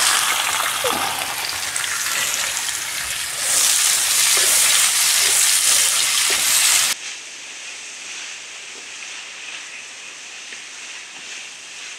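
Sliced onions sizzling in hot oil in a wide metal pan as they are tipped in and stirred with a wooden spatula. The sizzle grows louder about three and a half seconds in, then drops suddenly to a softer, steady sizzle about seven seconds in.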